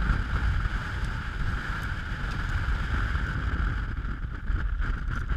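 Strong wind buffeting the microphone: a gusty low rumble with a steady hiss above it.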